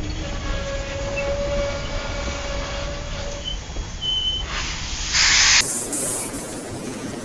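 Norfolk & Western 611 steam train rolling slowly past, its tenders and cars rumbling on the rails with a faint steady wheel squeal. About five seconds in comes a loud burst of steam hiss, then the sound cuts off abruptly into a thinner hiss.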